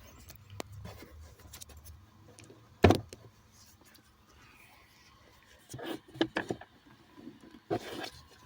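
Scattered clicks and knocks of handling, with one loud sharp knock about three seconds in and a cluster of knocks and rattles in the last few seconds.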